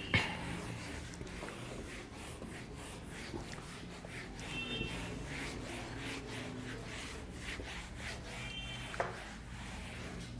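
A whiteboard eraser wiping marker writing off a whiteboard in quick repeated rubbing strokes. There is a short knock right at the start and another near the end.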